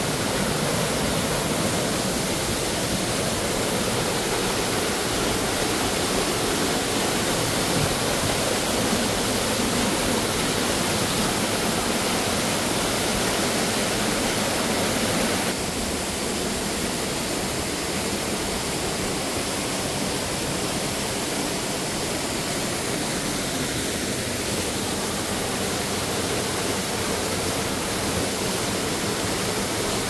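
Steady rush of a small waterfall splashing into a rock pool. About halfway through it gives way to a slightly quieter mountain stream running over rocks.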